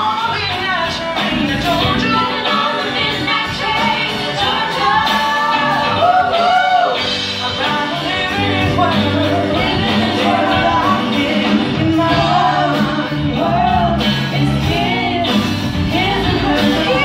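A live rock band with a female lead singer: she sings a melody over electric guitars and a drum kit, the band playing steadily throughout.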